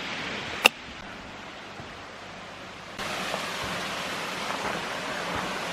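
Steady rush of falling water from a waterfall, with one sharp click about half a second in. The rush gets louder and brighter about three seconds in.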